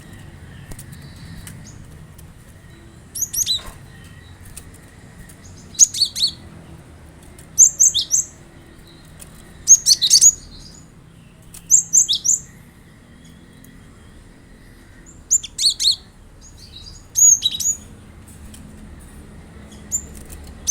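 Cinereous tit (gelatik batu) calling in short bursts of high, sharp chirps. Each burst is a quick cluster of notes sweeping down in pitch, and the bursts come about every two seconds.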